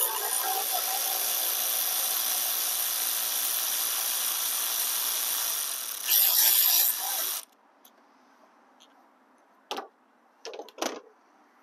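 Cordless electric ratchet running for about seven seconds, spinning out a bolt on a car's battery hold-down clamp, briefly louder near the end of the run before it stops. A few light clicks follow.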